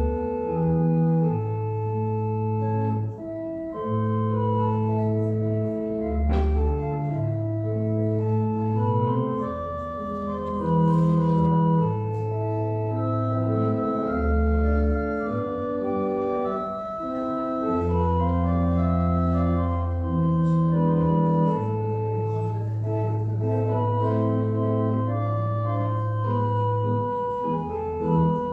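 Slow organ music: sustained chords over held bass notes that change every one to three seconds.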